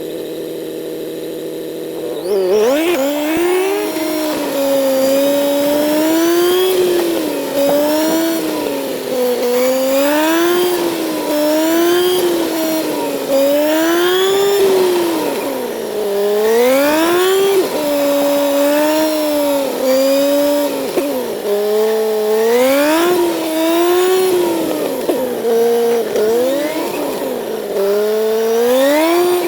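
Kawasaki Z900's inline-four engine under way, holding a steady note for about two seconds and then revving up and dropping back over and over, its pitch rising and falling every second or two as the motorcycle accelerates and slows.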